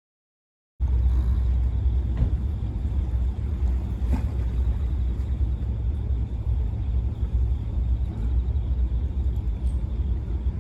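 Steady low rumble aboard a fishing boat under way, cutting in abruptly about a second in.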